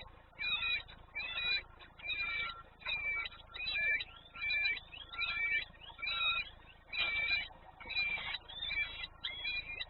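A bird calling repeatedly in high, looping chirps, about two calls a second.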